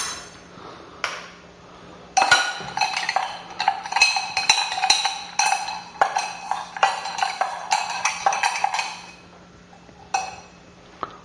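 Bar spoon stirring a single ice cube in a stainless steel shaker tin: a fast, irregular run of metallic clinks with a ringing tone, from about two seconds in to about nine seconds. A lone clink comes about a second in and another near the end.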